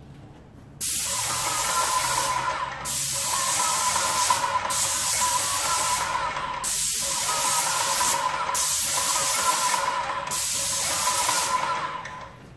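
Airless spray gun with a Wagner/Titan HEA 517 tip spraying paint at just over 1,000 PSI: a loud, steady hiss with a faint whine under it, dipping briefly about every two seconds as the strokes change. It starts about a second in and stops just before the end.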